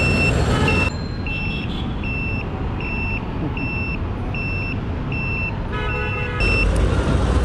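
A high electronic beeper sounding about one and a half times a second, evenly, over motorcycle engine and road noise. A short vehicle horn sounds about six seconds in, and the low road rumble gets louder just after.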